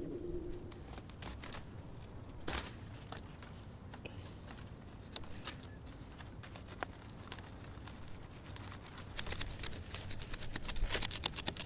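Dry plant material crackling and rustling, with scattered sharp snaps that come thicker near the end.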